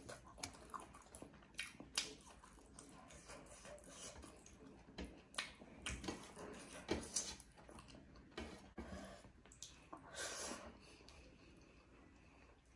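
Close-up eating sounds: chewing buff meat and rice with many sharp wet mouth clicks and smacks, and fingers mixing rice and meat on a steel plate. A longer, louder rustle comes about ten seconds in.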